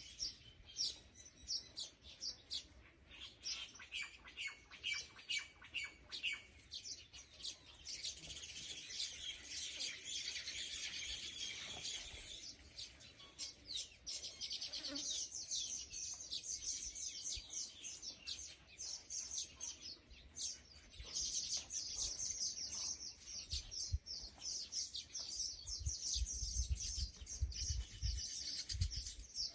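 Small birds chirping and twittering in a dense, rapid, continuous chatter, with a low rumble in the last few seconds.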